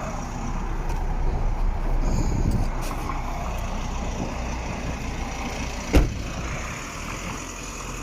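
Road traffic passing, one vehicle swelling past about two seconds in, over a steady low rumble. A single sharp knock about six seconds in.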